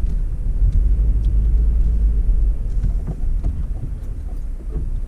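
Low rumble of a vehicle's engine and road noise as it rolls slowly along the curb, easing off about three seconds in as it slows, with a few faint clicks near the end.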